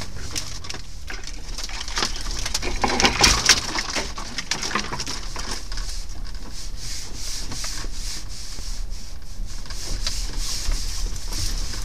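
Branches and brush scraping and snapping against an off-road vehicle's body as it pushes along an overgrown track, heard from inside the cab over the engine's low rumble, with a dense cluster of cracks about three seconds in.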